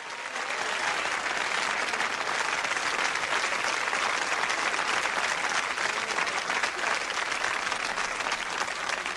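Studio audience applauding, swelling up over the first second and then holding steady.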